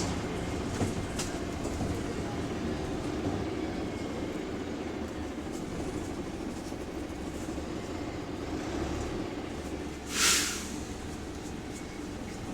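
Bus interior: steady engine and road rumble, with a few faint clicks. About ten seconds in, one short, loud hiss of compressed air from the air-brake system, the sound of the parking brake being applied.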